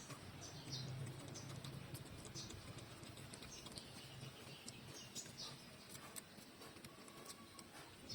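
Puppies about two to three weeks old suckling at their mother: faint, irregular wet clicks and smacks.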